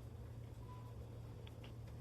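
Faint steady low hum, with a brief faint tone and two faint clicks about a second and a half in.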